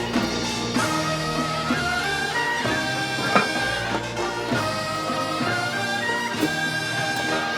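Background music from a Korean traditional orchestra, with held melodic lines and occasional percussion strikes.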